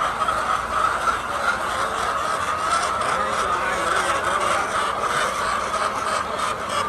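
Large flock of laying hens clucking and calling together in a steady, dense din.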